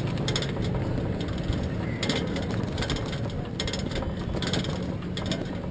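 Cycle rickshaw rattling and clicking in irregular clusters as it is ridden, over a steady background of street traffic noise.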